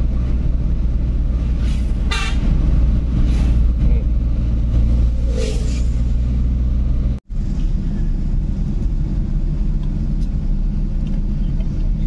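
Car engine and road noise heard from inside the cabin, a steady low rumble while driving. A brief wavering higher-pitched sound comes about two seconds in, and the sound drops out for an instant about seven seconds in.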